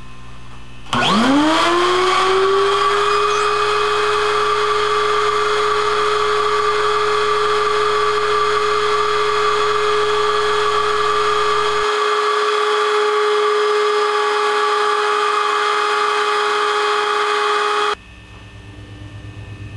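Vacuum motor of a homemade vacuum-forming table switched on about a second in, spinning up with a rising whine, then running steadily at a high pitch while it pulls a heated sheet of milk-jug HDPE down over the mold. It cuts off suddenly near the end.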